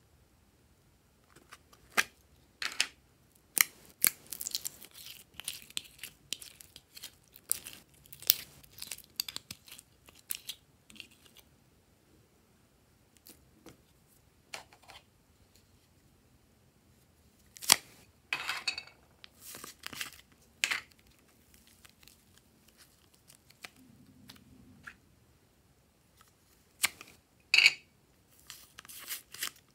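Scattered sharp clicks, crackles and tearing from hands handling slime add-ins: a butterfly-shaped makeup palette at the start, then a lump of purple clay torn apart near the end, with a quieter stretch in the middle.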